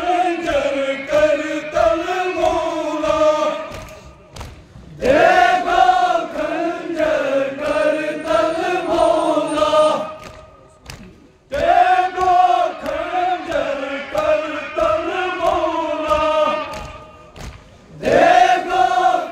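A crowd of men chanting a Kashmiri noha, a Muharram mourning lament, in unison, in sung phrases about five seconds long with short breaks between them, over a rhythmic chest-beating (matam).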